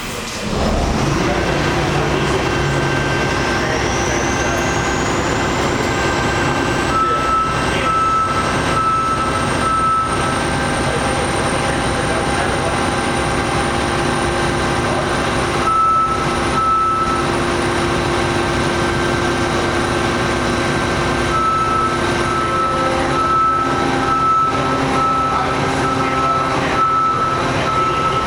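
A heavy vehicle's engine runs steadily, with a high whine that rises over the first several seconds and then holds. A reversing beeper sounds in three spells of evenly spaced beeps.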